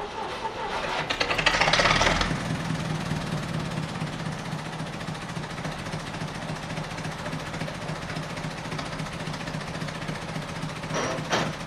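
Steam hissing loudly from the locomotive for about two seconds. Then a steady low idling engine hum, likely the diesel shunter in the shed, runs on, with a brief high squeal near the end.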